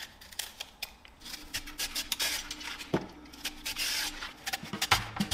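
Y-shaped vegetable peeler shaving the skin off a kohlrabi and then a root vegetable, a quick run of short rasping strokes. Music starts near the end.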